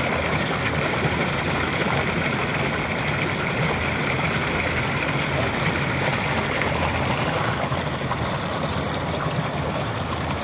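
Water gushing steadily through a concrete inlet into a fermenter tank of liquid bio-fertilizer, churning and splashing as it fills the tank, with a steady low hum beneath.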